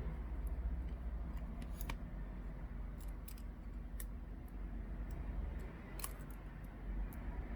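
Small sharp clicks and ticks, about ten scattered irregularly, of a small screwdriver working tiny screws back into a tablet's frame during reassembly, over a low steady hum.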